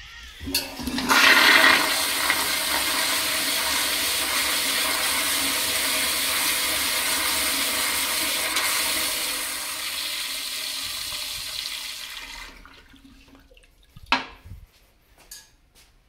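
Commercial toilet with a chrome flushometer valve flushing: a click, then a loud rush of water that holds steady for about nine seconds, tapers off and stops about twelve seconds in. A single sharp clack follows a second and a half later.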